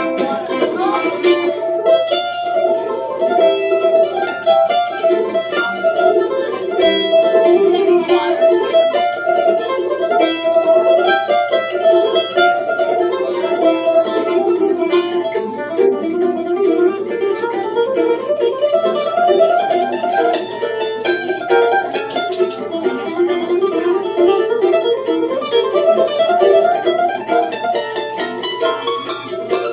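Mandolin playing an instrumental passage live, a quick, steady stream of picked notes.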